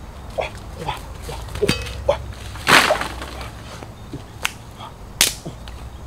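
Several short animal calls, each falling in pitch, with a louder noisy burst about halfway through and two sharp cracks near the end.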